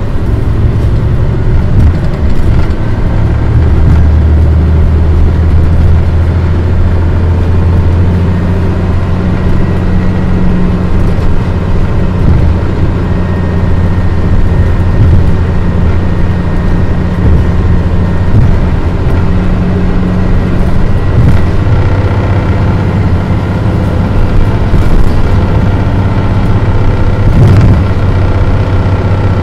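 Interior running sound of a 2002 Mitsubishi Fuso Aerostar KL-MP35JM city bus with a manual gearbox under way: its diesel engine drones steadily. Its note changes a few times as the load and gears change.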